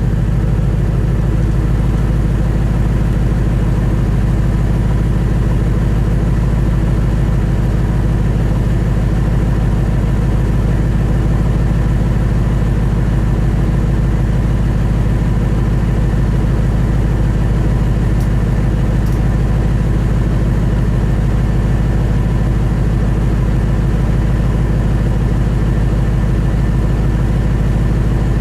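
A 1998 Ford Expedition's 5.4-litre V8 idling steadily with its mufflers and stock exhaust removed, its pitch never rising.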